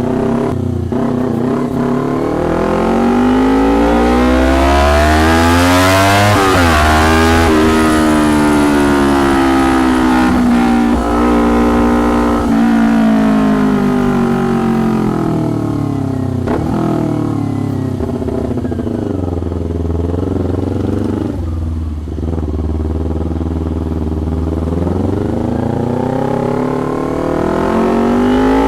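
Loud custom exhaust of a 2019 Kawasaki Ninja 250 parallel-twin on the move. The engine pitch climbs and breaks off at a gear change about six seconds in, drops away for a long stretch as the bike slows, and climbs again near the end, with a few sharp cracks.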